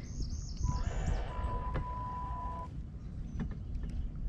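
Baitcasting reel's spool spinning as line pays out on a cast: a steady whir with a single steady tone for about two seconds that stops abruptly.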